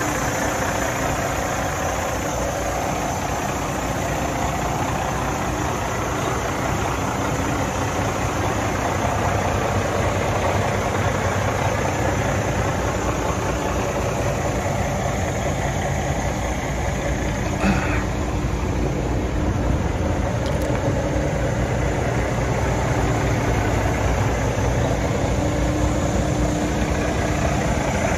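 The Cummins diesel engine of a 2009 International ProStar day cab truck idling steadily, with one short click partway through.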